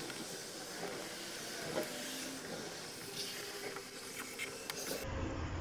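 Black PVC electrical tape pulled off its roll and wound around a wire, giving a few faint crackles and a light knock over a steady hiss.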